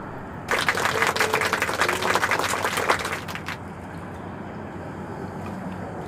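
Spinning fishing reel clicking rapidly for about three seconds, a fast, even clicking whir, while a hooked fish is brought in.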